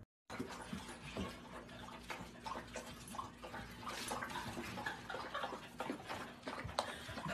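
A puppy with its head in a toilet bowl, lapping and splashing the water: a run of irregular wet clicks and small splashes.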